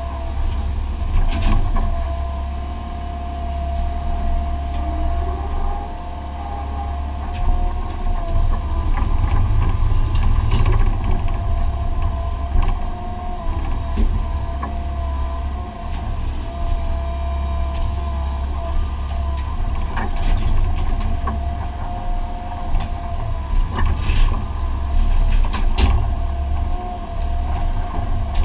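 Excavator's diesel engine and hydraulics running under load, heard from inside the cab: a steady low drone with a steady whine over it. A few sharp clanks of the bucket striking rubble, two of them close together near the end.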